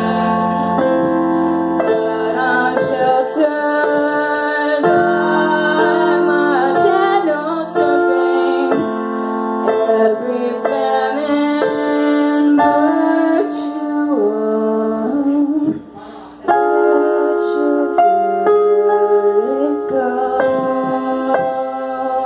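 A woman singing live to her own keyboard accompaniment played with a piano sound. The playing and singing break off briefly about three-quarters of the way through, then resume.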